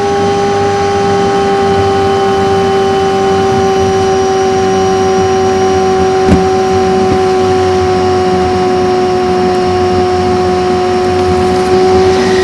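Renault Laguna 1.8 8-valve engine and road noise played back at five times speed, so the engine's drone comes out as a high, steady tone that sinks slightly in pitch. A single sharp knock about six seconds in.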